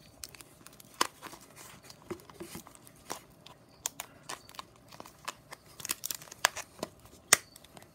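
Clear plastic deli cup and its snap-on lid being handled and pressed shut: a scattered series of sharp plastic clicks and crinkles, the loudest near the end.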